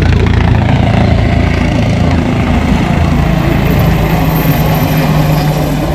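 A vehicle engine running: a loud, steady low rumble, with a steady low hum joining about halfway through.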